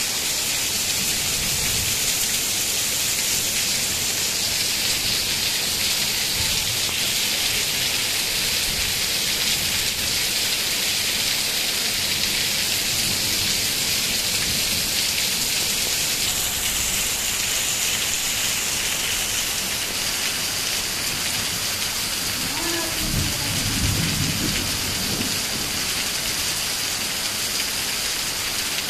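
Heavy rain falling steadily in a thunderstorm, a constant hiss, with a low rumble of thunder rolling in about four-fifths of the way through.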